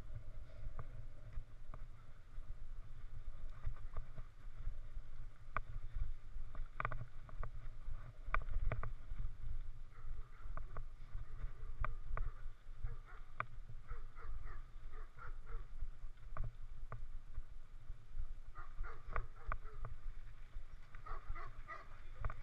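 Mountain bike ridden over a rough dirt trail, heard from a helmet-mounted camera: a steady low rumble of wind and jolting on the microphone, with scattered clicks and rattles from the bike and the ground.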